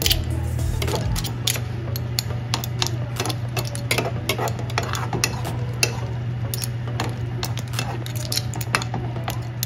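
A metal spoon stirring clams and mussels in their shells in a frying pan, clinking and scraping against the pan and the shells in many irregular clicks, over a steady low hum.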